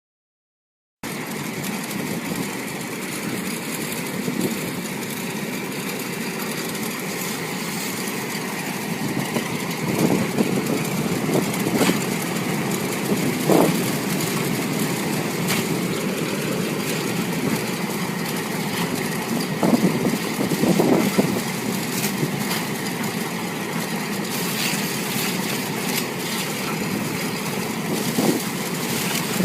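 Air-bubble washing machine running: a steady churning noise that starts abruptly about a second in, with short louder surges now and then.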